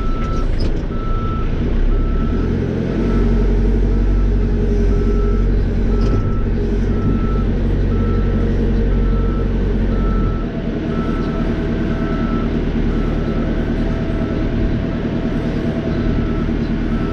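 Caterpillar 430E backhoe loader's diesel engine running, with its reversing alarm beeping steadily about twice a second. The engine works harder from about three seconds in and eases off about ten seconds in.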